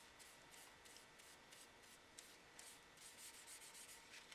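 Faint rubbing and dabbing of a paper towel on wooden knife-handle scales as stain is worked in, a run of soft, quick strokes that grow a little louder in the second half.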